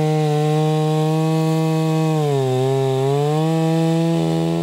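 Two-stroke petrol chainsaw running at full throttle while cutting down through a log. Its engine note sags for about a second midway, then climbs back.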